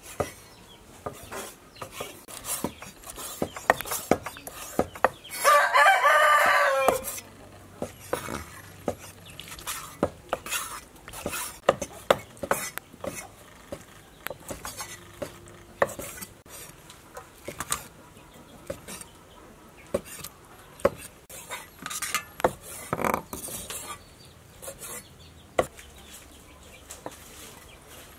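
Cleavers chopping cooked pork and intestine on wooden chopping blocks: irregular sharp knocks throughout. A rooster crows once, loudly, about six seconds in.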